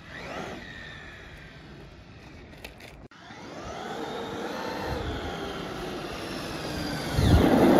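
Traxxas X-Maxx electric RC monster truck driving on asphalt, its brushless motor whining with tyre noise. The whine builds as the truck speeds toward the camera and is loudest as it passes close near the end, its pitch dropping as it goes by.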